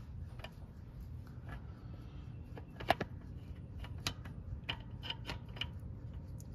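Scattered, faint metallic clicks and taps as a magnetic pickup tool on a flexible shaft is worked up among a Ford Y-block's crankshaft throws and connecting rods, the strong magnet catching on the throws; a low steady hum underneath.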